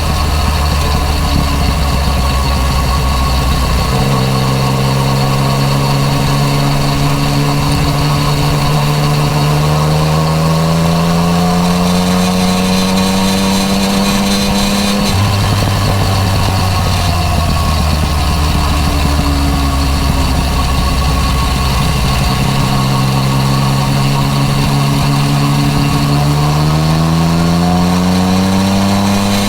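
Yamaha MT-09 Tracer three-cylinder engine running through an Akrapovič exhaust, heard from on the bike while riding. The engine note holds steady, climbs gradually for several seconds about a third of the way in, drops back, and climbs again near the end.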